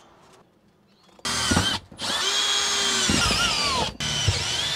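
Milwaukee Fuel cordless drill starting about a second in and drilling into the vehicle's floor in three runs with two short breaks, its motor pitch sagging and recovering as the bit bites.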